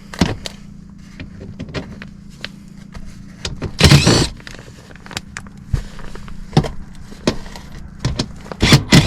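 Cordless drill-driver running in short bursts, about four seconds in and again near the end, backing screws out of a sheet-metal plenum to free a zone damper, with light clicks and knocks of handling in between. A low steady hum runs underneath.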